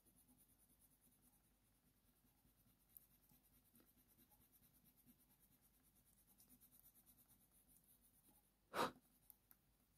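Faint scratching of a Faber-Castell Polychromos ivory colour pencil stroking across hot-press watercolour paper. A short knock sounds near the end, followed by a couple of small clicks.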